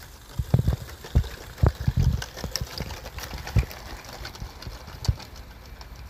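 Miniature live-steam garden-railway train running past on its track, with irregular low knocks and clatter from the wheels and wagons, most of them in the first few seconds.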